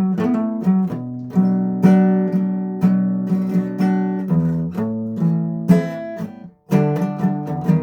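Guitar strumming chords, one stroke after another with the notes ringing on. The playing stops for a moment about two-thirds of the way through, then picks up again.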